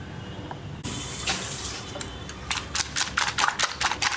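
Eggs being beaten in a bowl with a hand whisk, the wires clicking against the bowl in a quick, even rhythm of about five strokes a second that starts about two and a half seconds in. A short rustling hiss comes just before.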